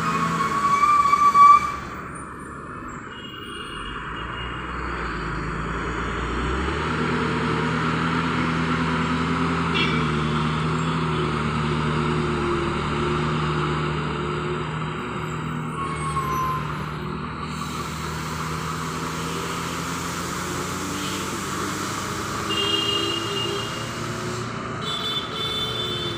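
A motorcycle passes close by in the first two seconds, then a loaded Tata lorry's diesel engine runs steadily at low speed as the truck takes the tight bend, easing off slightly toward the end.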